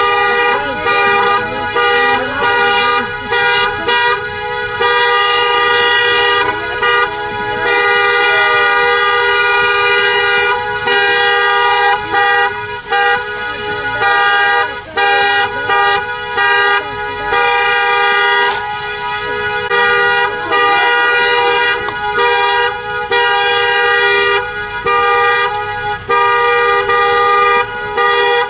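Car horns sounding in long held blasts with short breaks between them, two pitches blaring together.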